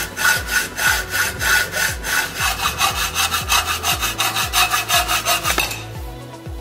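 Hand hacksaw cutting through a metal intake pipe in quick, even back-and-forth strokes. The sawing stops nearly a second before the end as the cut goes through, followed by a single knock.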